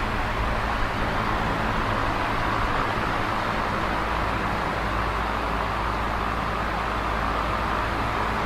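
Large box fan running steadily: an even rush of air with a low hum underneath.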